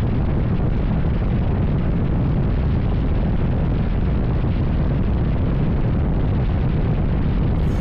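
Harley-Davidson V-twin motorcycle running steadily at road speed, its engine and exhaust rumble mixed with wind buffeting on the microphone.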